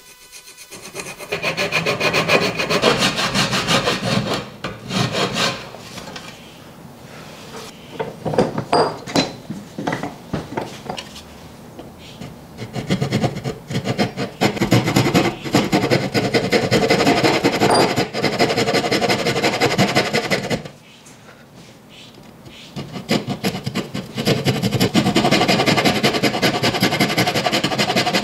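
Wood being abraded, a tool rubbing and scraping against the wood in spells of rapid strokes with short pauses between them.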